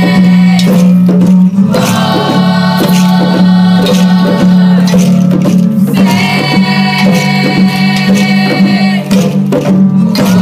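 Children's choir singing long held notes together, with rhythmic hand clapping.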